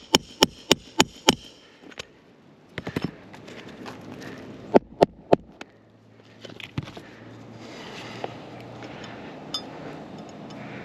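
Hammer driving roofing nails into a replacement asphalt shingle: a quick, even run of about five blows in the first second and a half, a few lighter taps, then three hard blows about five seconds in.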